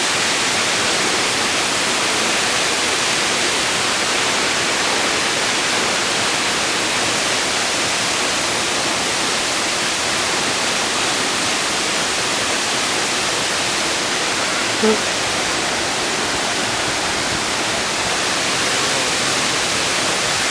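A waterfall pouring, a steady unbroken rush of falling water, with one brief short sound about fifteen seconds in.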